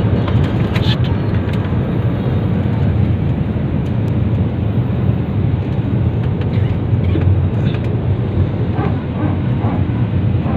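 Steady low cabin rumble of a passenger jet's engines heard from inside the cabin, with faint passenger voices near the end.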